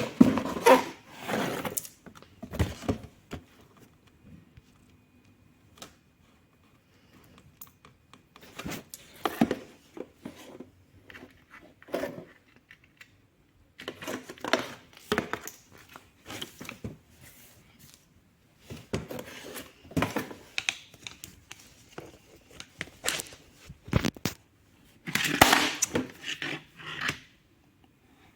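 A new electric fan and its packaging being handled: irregular bursts of rustling, clicks and knocks, with short pauses between them.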